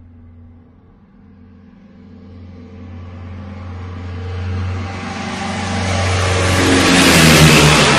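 A motor vehicle approaching and passing close by: a low engine hum grows steadily louder into a rushing peak about seven seconds in, then begins to fade.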